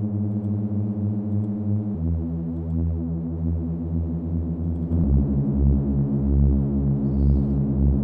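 Reese bass from the Serum 2 synthesizer playing long sustained notes, with a short reverb on it. The note steps down twice, about two seconds in and again about five seconds in.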